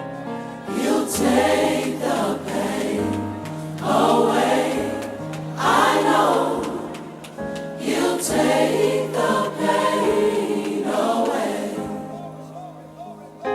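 Gospel choir singing long, swelling phrases over steady held notes, in waves every couple of seconds.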